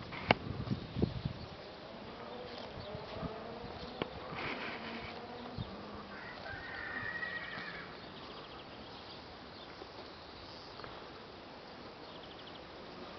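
A horse whinnying with a wavering call a few seconds in, over a few sharp clicks near the start.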